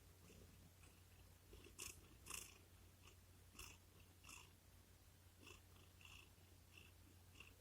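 Domestic cat purring faintly in a low, steady rumble, with a few short, soft clicks or rustles scattered through it, the loudest about two seconds in.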